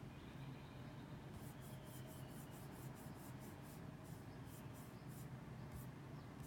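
Fingertips brushing across a MacBook Pro trackpad in quick scroll swipes: a run of faint, short swishes, about five a second, that stops near the end.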